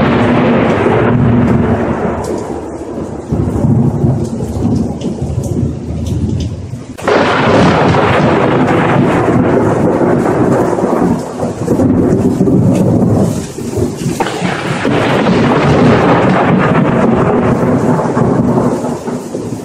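Thunderstorm sound effect: heavy rolling thunder over steady rain. Fresh thunderclaps break in suddenly about 7 and 14 seconds in, and each rumbles away slowly.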